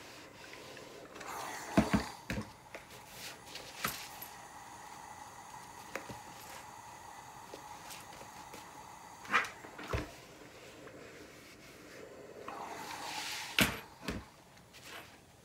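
Ironing and handling cotton fabric on a pressing board: a clothes iron glides over the cloth and is set down, with a few sharp knocks about two seconds in, near the middle and near the end, between soft rustles of the fabric being slid and smoothed by hand.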